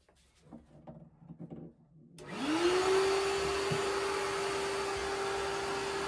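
Shop vacuum switched on about two seconds in: its motor whines up to speed and then runs steadily, with air rushing through the hose. A few faint knocks come before it starts.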